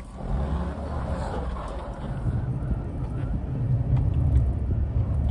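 Pickup truck engine and road noise heard from inside the cab as the truck pulls away and drives, a low steady sound that grows gradually louder.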